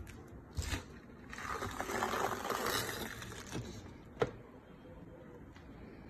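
Plastic film on a new top-loading washing machine crinkling and scraping as the machine is handled and its lid is lifted: a thump about half a second in, about two seconds of rustling, then a sharp click a little after four seconds.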